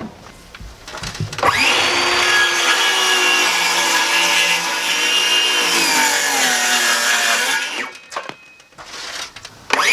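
Electric power tool running for about six seconds with its pitch sagging slightly under load, then stopping, with a short click, before starting again near the end.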